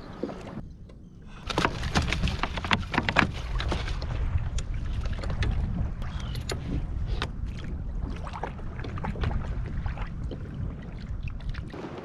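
Water and wind around a pedal kayak on open water: a steady low rumble of wind on the microphone and water against the hull, with many sharp clicks and knocks of gear being handled on the boat from about a second and a half in.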